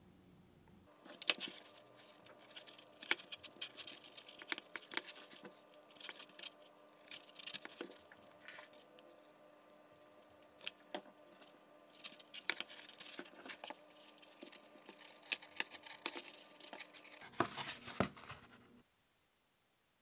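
Close handling noise of light model-building work on a foam-board wing: irregular small clicks, taps and scratches as a plastic control horn is pressed into the foam and a hot glue gun is worked to fix it. A faint steady hum runs under most of it, and the sounds stop abruptly near the end.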